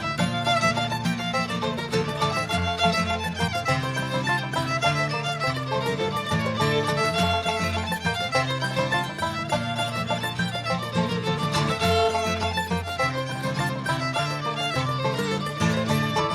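Acoustic string band music in a bluegrass style, recorded live: a fiddle carries the melody over guitar, banjo and mandolin.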